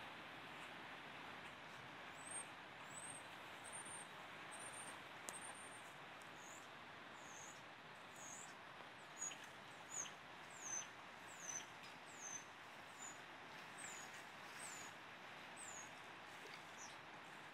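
A small bird calling over and over with short, high, thin chirps, some arched and some falling, about one or two a second, starting about two seconds in. Under it is a faint, steady rushing hiss.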